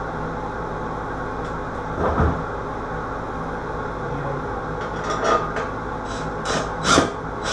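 Steady low room hum with a dull knock about two seconds in, then several short clicks and knocks near the end, as a cordless drill/driver is handled inside a medicine cabinet during installation.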